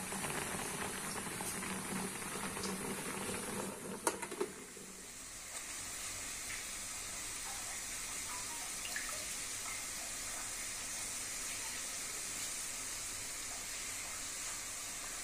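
Two sharp knocks about four seconds in, then a steady high hiss of food sizzling in a pan.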